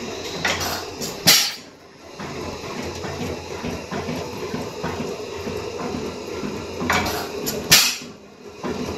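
1910 Allan Brothers 3 hp continuous lamp kerosene oil engine running with a steady clatter, freshly repaired gudgeon pin bush. Two loud sharp bursts come about six and a half seconds apart, near the start and near the end.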